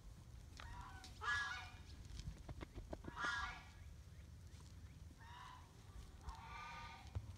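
A series of about five short, honking animal calls, each about half a second long and a second or two apart, over a low steady rumble.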